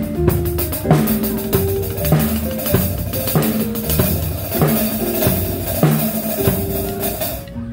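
A child playing an acoustic drum kit with sticks, a steady beat of drum and cymbal hits, with music playing along underneath. The drumming stops near the end.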